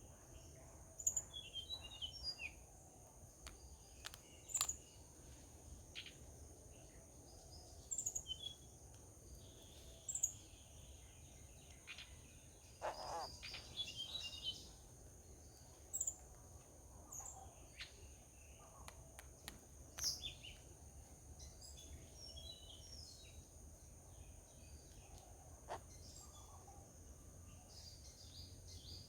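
Birds calling outdoors: short, scattered chirps and calls every second or two, with a longer burst of calls about thirteen seconds in, over a steady high-pitched hum and a low background rumble.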